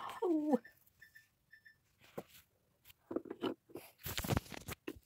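A short falling vocal sound, then faint clicks from small objects being handled. A little after four seconds in comes the loudest part: a brief rustle as a knit sleeve brushes over the phone's microphone while it is moved.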